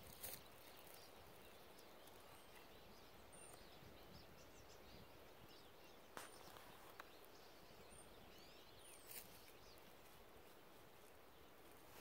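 Near silence: faint woodland ambience with a few soft clicks and faint, high, distant bird chirps.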